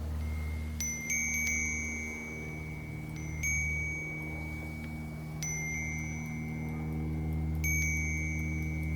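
Wind chime stirred by the wind, its tubes struck in small clusters about every two seconds, each strike ringing on in high, clear notes. A steady low hum sits underneath.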